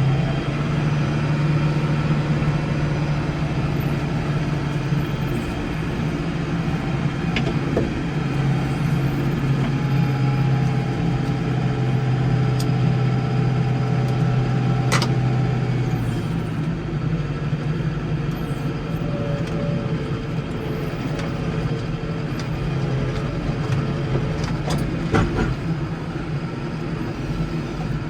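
Case 115U tractor engine running steadily under load, its hum easing off slightly about halfway through, with a few sharp clicks or knocks.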